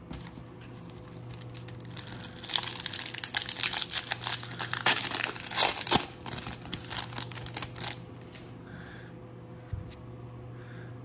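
The foil wrapper of a Topps Opening Day baseball card pack being torn open and crinkled: a dense crackling that starts about two seconds in and dies away near eight seconds.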